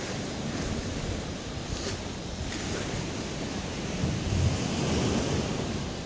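Ocean surf washing into a narrow rocky channel, a steady wash that swells about four seconds in, with wind buffeting the microphone.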